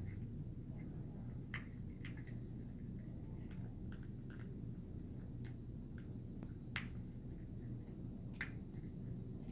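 Paperboard box panels being folded and tucked by hand, giving a few scattered sharp clicks and snaps, the loudest about two thirds of the way in, over a faint steady low hum.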